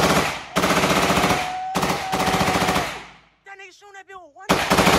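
FN P90 firing 5.7×28mm rounds in rapid fully automatic bursts, very loud: a burst ends just after the start, two more follow lasting about a second each, and another begins near the end.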